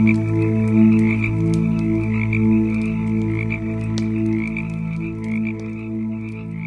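Wood fire crackling, with frequent sharp pops, over a louder low pulsing drone of several steady tones that swell and fade about twice a second.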